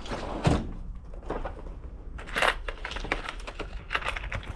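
Irregular light clicks and taps of small hard parts being handled, a few times a second, with no compressor running.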